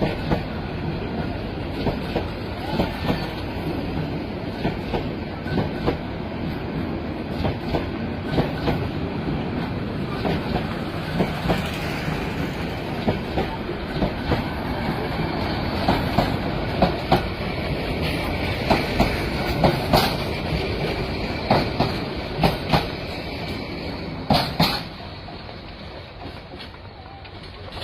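A moving train: steady rumble with wheels clattering over rail joints in irregular clicks and knocks, growing quieter in the last few seconds.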